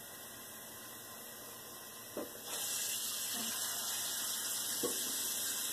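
Pot of water heating toward the boil, hissing steadily as small bubbles form on the bottom, not yet at a rolling boil. The hiss gets louder and brighter about two and a half seconds in, with a few faint ticks.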